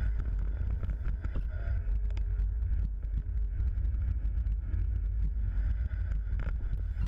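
Riding a loaded mountain bike over rough ground: wind buffeting the microphone, with rattling and clicking from the bike and tyres.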